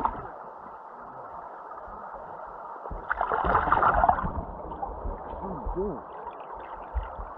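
Mountain trout stream running steadily, with a louder burst of splashing lasting about a second, about three seconds in, from a hooked trout fighting at the surface.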